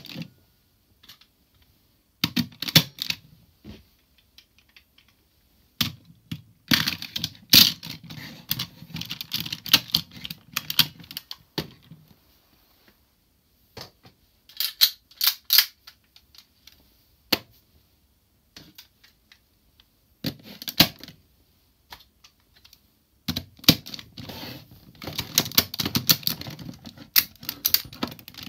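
Hard plastic cube pieces of a DX Zyuohger combining robot toy clicking and snapping together as they are stacked and fitted into place. The sound comes in several bursts of quick clicks and rattles, with short pauses between.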